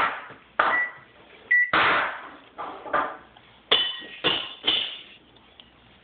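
Microwave oven keypad being pressed, giving short high electronic beeps, mixed with a string of sharp knocks and clunks from the oven being handled.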